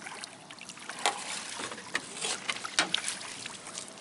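Water splashing and trickling around a fishing boat, with scattered knocks and clatter from handling on board.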